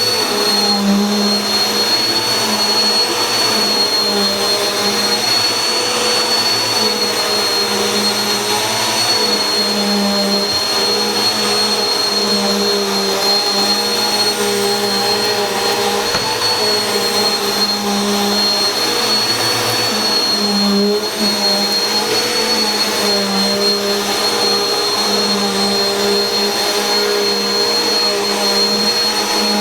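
Bissell PowerForce Helix bagless upright vacuum cleaner (model 1700) running steadily, its motor hum topped by a constant high-pitched whine.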